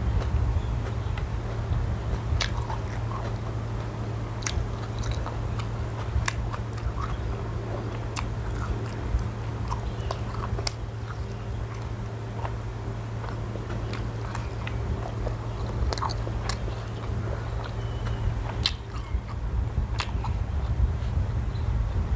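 A person eating close to the microphone: biting and chewing, with many scattered short crisp clicks. A steady low hum runs underneath.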